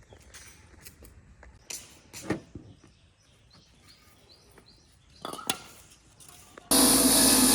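Scattered light clicks and knocks of parts being handled. About seven seconds in, a loud, steady machine noise cuts in suddenly.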